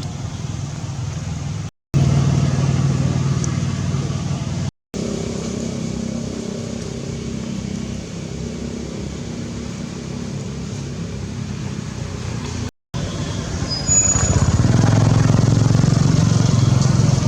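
Steady low engine hum of motor vehicles, broken by three brief drops to silence and growing louder about two-thirds of the way through.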